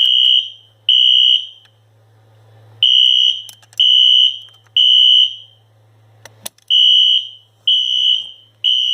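Fire alarm horn sounding the temporal-three evacuation pattern: three steady, high-pitched beeps about a second apart, a pause, then the next three. There is a sharp click about six seconds in.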